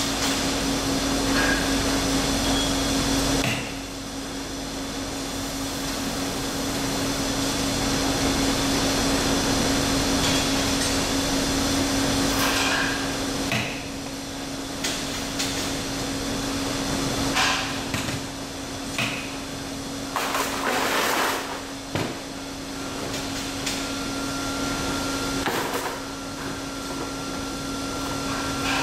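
Universal testing machine running with a steady hum as it pulls a rebar coupler splice in tension, with scattered knocks and clicks. The hum stops about three-quarters of the way through.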